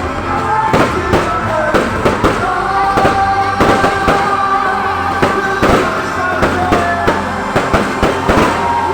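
Fireworks display: aerial shells bursting in a rapid, irregular series of bangs, several a second, with music playing underneath.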